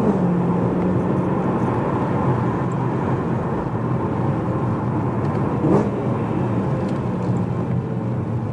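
BMW E92 M3's V8 with a primary-decat X-pipe and stock rear silencer, heard from inside the cabin: the revs fall at the start, then the engine runs steadily under way, with a short louder blip about six seconds in.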